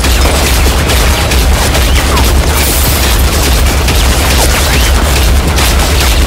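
Film sound-design of sustained heavy machine-gun fire: a dense, loud run of rapid shots over deep booming explosions.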